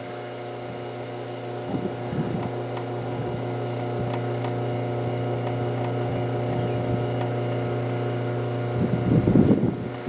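A motor or engine running steadily with an even, low hum. A brief knock comes about two seconds in, and a louder rough patch comes near the end.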